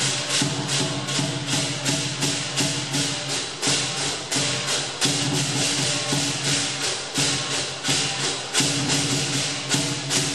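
Lion dance percussion: cymbals clashing in a fast, even beat of about three or four strikes a second, with drum and gong ringing low underneath.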